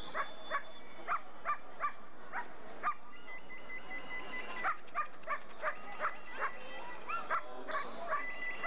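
German Shepherd Dog barking in a long, quick, even series, about two to three barks a second.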